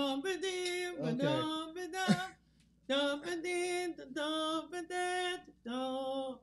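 A voice singing a few lines of a song unaccompanied, in long held notes, with a short pause a little over two seconds in.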